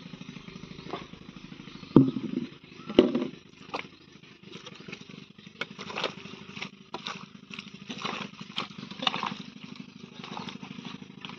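Bare feet treading wet clay and a hoe chopping into it: two heavy thuds about two and three seconds in, then softer wet squelches and slaps about once a second. A steady engine hum runs underneath.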